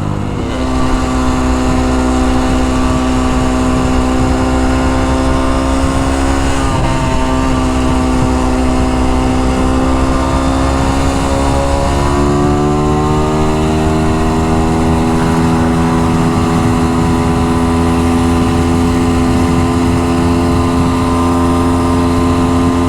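The small four-stroke single engine of a Honda Dax-style minibike running steadily while riding, its pitch rising a little about a quarter of the way in and again about halfway as it speeds up. The exhaust is loose and leaking.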